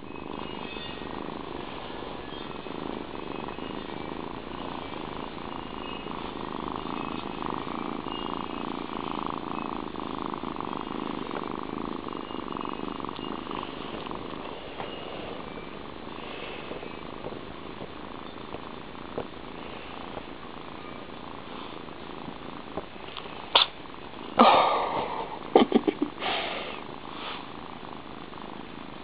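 Calico kitten purring steadily while being rubbed. Near the end come a handful of loud, sharp knocks and rubs.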